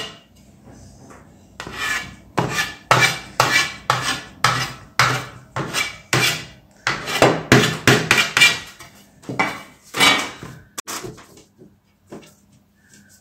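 A metal blade chopping down against the rim of a round metal baklava tray in a long run of quick strokes, about two to three a second, cutting the overhanging phyllo sheet off around the edge. The strokes stop shortly before the end.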